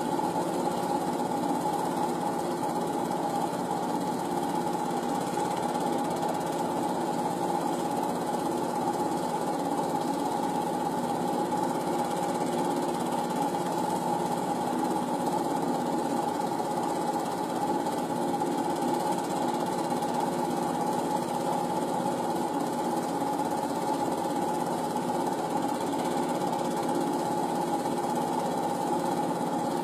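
Film projector running: a continuous fast mechanical clatter over a steady hum, unchanged throughout.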